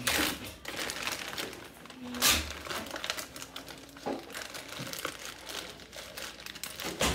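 Plastic zip-top bag crinkling as it is handled and fitted into a cup, with louder crackles at the start and about two seconds in.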